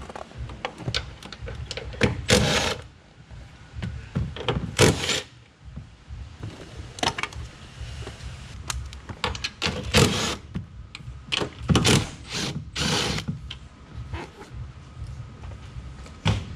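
Makita 18V cordless impact wrench (rattle gun) in several short bursts of about half a second, undoing the rear strut top-mount nuts. Small clicks and knocks of handling come between the bursts.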